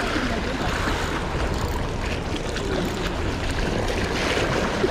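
Sea waves washing and splashing over shoreline rocks, a steady rush of surf, with wind rumbling on the microphone.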